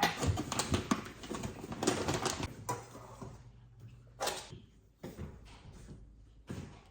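Knocks and clatter of kitchen things being handled, such as cupboard doors and cookware. It is busiest in the first three seconds, then thins to a few separate knocks.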